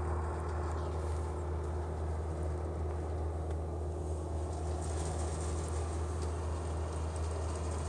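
Farm machinery engine running with a steady low drone that does not change, from the grape-harvesting machines working the vineyard rows.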